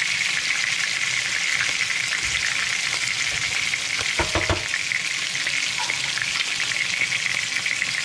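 Battered redfish fillets shallow-frying in hot oil in a skillet: a steady sizzle and crackle, with a few brief knocks about four seconds in.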